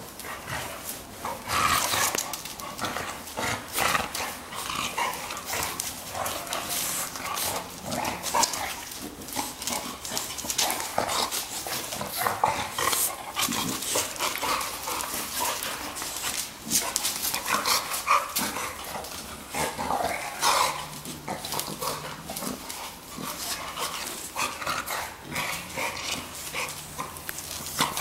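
Two chow-type dogs play-fighting, a dense, irregular run of short mouthy vocal noises and scuffles.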